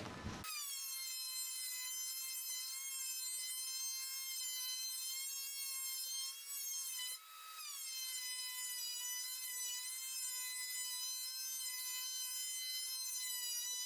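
DeWalt thickness planer running with a board passing through its cutterhead: a high, steady whine that dips in pitch and level briefly about seven seconds in, then recovers.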